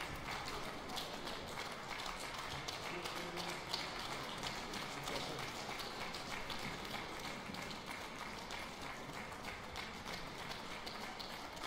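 Audience applauding: many hands clapping steadily and without a break.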